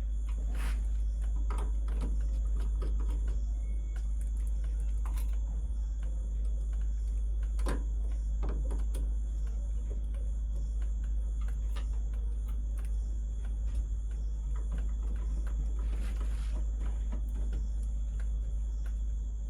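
Scattered light clicks and handling noise as a power supply cable is worked into the terminal block of an air conditioner's outdoor unit. Underneath run a steady low rumble and a steady high-pitched trill.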